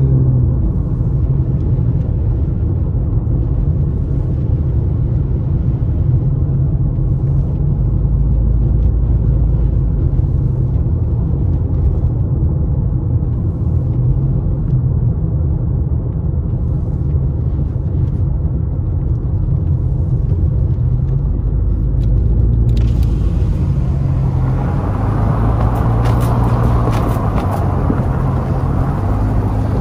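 Steady low rumble of a car in motion, heard from inside the cabin: engine and tyre noise on the road. About 23 seconds in, the sound suddenly turns brighter, with a hiss added on top of the rumble.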